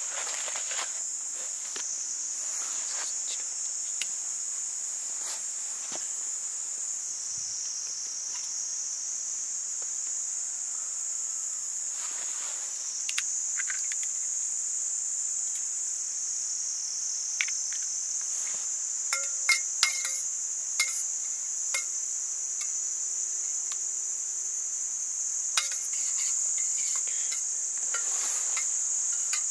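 Steady, high-pitched chorus of insects buzzing, with scattered light clicks and knocks; a few sharper knocks come about two-thirds of the way through.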